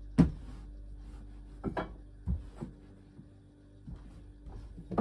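Hands working dough on a floured wooden pastry board: a handful of dull knocks against the wood, the loudest just after the start, with soft rubbing between them. A steady low hum runs underneath.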